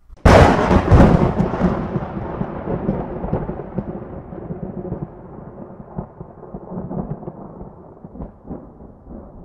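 A sudden thunderclap, then a long rolling rumble that fades away over several seconds, with a few smaller swells near the end.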